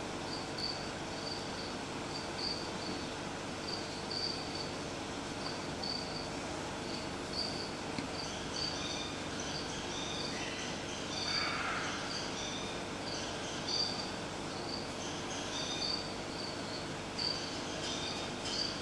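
Crickets chirping in an even rhythm of about two chirps a second, with a second chirping voice joining about eight seconds in. A brief rustle is heard near the middle, over a steady low hiss and hum.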